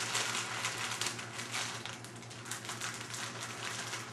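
Dry banana bread mix pouring from its torn plastic pouch into a mixing bowl: a quick, dense rustling patter.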